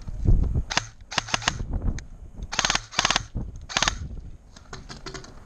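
Airsoft rifle firing several short full-auto bursts of rapid clicking shots, about five bursts in quick succession.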